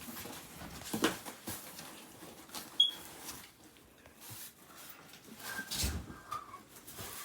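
A fire alarm gives a single short, high-pitched chirp about three seconds in. Soft knocks and shuffling from people moving about sound around it.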